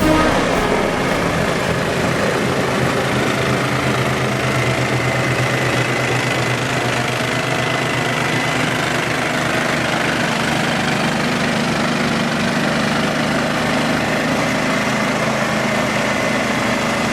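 A motor engine running steadily at an even idle, a low constant hum with a broad noisy wash over it and no change in speed.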